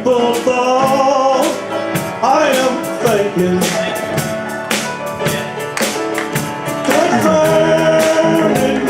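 A man singing a country gospel song in the key of A, with instrumental accompaniment: steady bass notes under the sung melody and regular sharp percussive hits.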